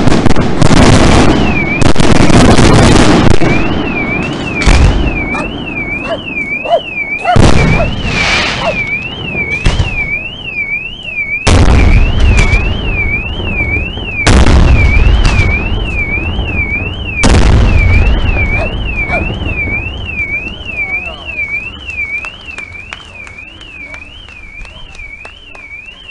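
Aerial fireworks bursting with loud booms and crackle: a dense volley at first, then single big bursts every few seconds, dying away toward the end. A car alarm warbles up and down about twice a second under most of it.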